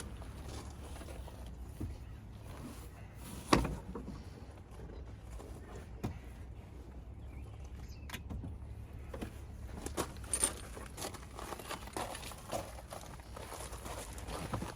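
Scattered knocks, clicks and rattles of parts being handled and moved inside a pickup's cab, over a steady low hum. One sharp knock about three and a half seconds in is the loudest sound, and a run of light clicks follows near ten seconds.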